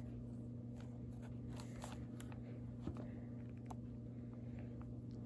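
Pen scratching on lined notebook paper in short, faint strokes while drawing, over a steady low hum.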